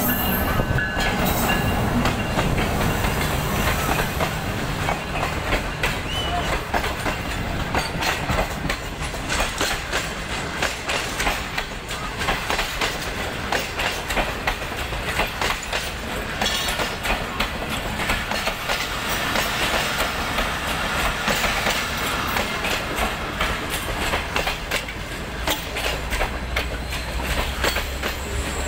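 Passenger train coaches rolling past on the track, their wheels clicking over rail joints in a rapid, continuous run of clicks over a steady rumble. The low hum of the diesel-electric locomotive passing is heard in the first couple of seconds.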